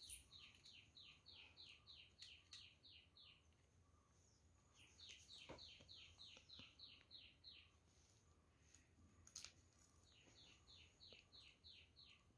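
Faint bird chirping: quick runs of short, high chirps at about four a second, repeated three times with pauses between. A few soft clicks, one sharper about nine seconds in.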